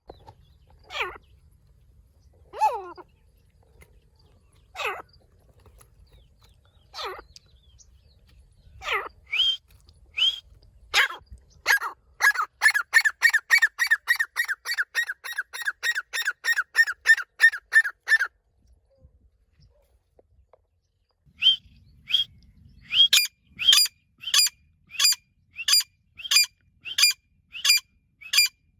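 Female grey francolin calling. Single sharp calls come about every two seconds, then a fast run of about three to four calls a second for several seconds. After a pause of a few seconds, a second run of about two calls a second follows near the end.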